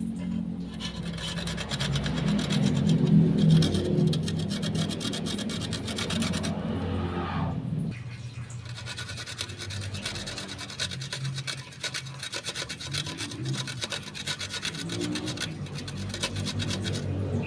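Kencur (aromatic ginger) root being grated on a hand grater: fast, repeated rasping strokes, over a low background hum.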